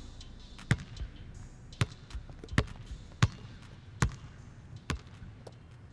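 Basketballs bouncing on a gym floor: a series of sharp, separate bounces at uneven intervals.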